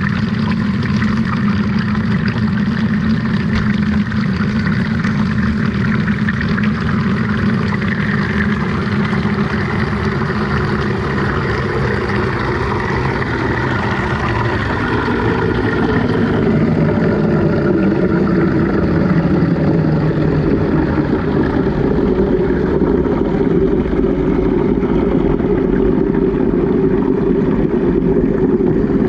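Washing machine running with a GoPro inside: a steady, muffled churning and sloshing of water in the drum. About halfway through, the sound shifts and grows a little louder.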